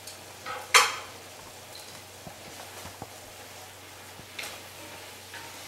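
Faint sizzling from a pot of curry cooking on the stove, with a brief loud swish just under a second in and a few fainter ones later.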